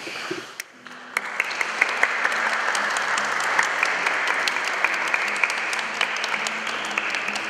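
Wedding guests applauding: a crowd's hand-clapping starts about a second in and carries on steadily.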